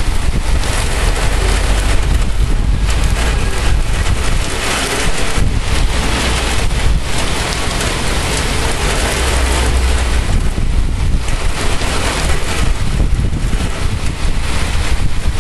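Heavy thunderstorm rain pouring down steadily, with wind buffeting the microphone and low rumbling that swells and fades several times.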